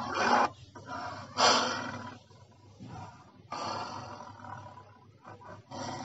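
Dinosaur roar sound effects: several separate roars, the loudest about a second and a half in and a quieter one a little past the middle.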